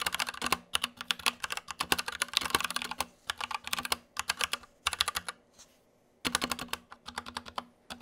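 Fast typing on an Anne Pro 2 60% mechanical keyboard with stock Gateron Brown tactile switches: a dense clatter of key presses with a dry, scratchy sound. The scratchiness comes from the unlubricated stock switches. The typing stops for about a second a little past halfway, then resumes.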